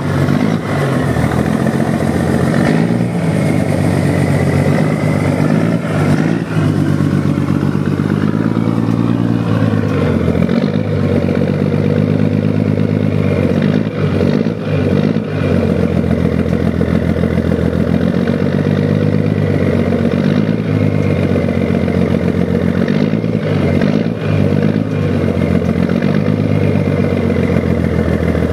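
1975 Scania truck's diesel engine running. It is revved up and down over roughly the first ten seconds, then settles into a steadier run with a few brief dips.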